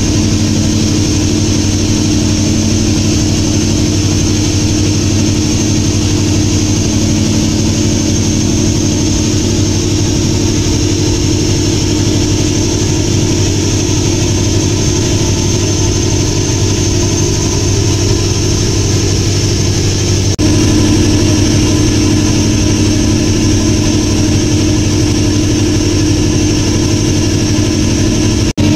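Boat engine running steadily with a constant low hum, over a hiss of water rushing past the hull; the sound briefly cuts out near the end.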